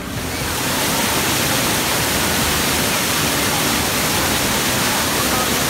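Waterfall pouring onto rock and into a pool: a steady, dense rush of falling water that comes up within the first half second.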